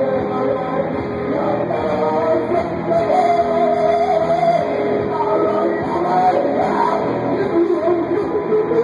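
Live amplified music: a voice singing over held instrument notes, played loud and without a break.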